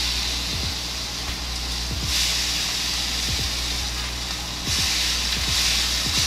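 Steaks searing in a hot pan: a loud, steady sizzle that swells about two seconds in and again near five seconds.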